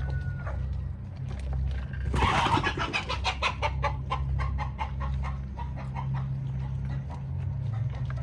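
Chickens clucking while feeding, with a short rush of noise about two seconds in followed by a run of quick clicks, about four a second, that fades away.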